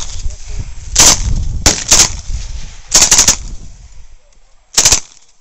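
Thompson submachine gun with a drum magazine firing short bursts, about five within a few seconds, roughly a second apart, each followed by a low rumbling echo.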